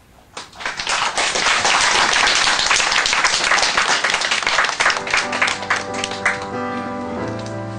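Audience applause starting about half a second in and dying away after about five seconds, as music with held notes fades in beneath it.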